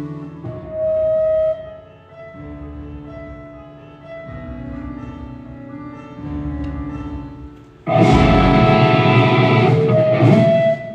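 A live band at a sound check. For about eight seconds it plays soft, held chords and single sustained notes. Then the full band comes in loud, with cymbal wash, for a few seconds and stops abruptly near the end.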